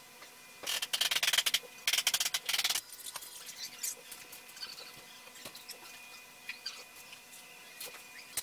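BROBOT desktop robot arm's drive motors running as it moves a calligraphy brush: two loud spells of rapid clicking chatter about a second apart, then fainter scattered ticks over a faint steady whine.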